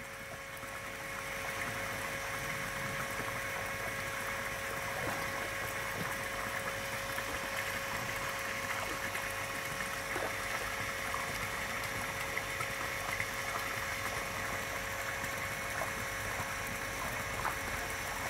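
Steady running and bubbling of garden pond water under a faint steady hum, with a few small splashes now and then from German Shepherds wading in the shallows.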